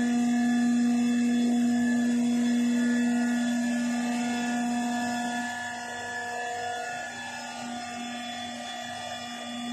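Infectious-waste bin washing machine running its wash cycle: a steady mechanical whine. It eases off somewhat past the middle and rises again near the end.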